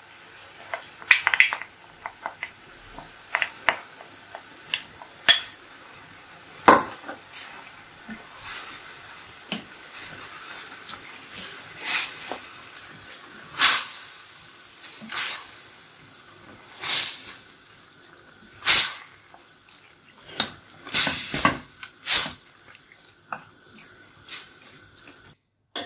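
Wooden spoon stirring minced chicken and tomato purée in a stainless steel pan, with irregular scrapes and knocks against the pan's metal sides and bottom.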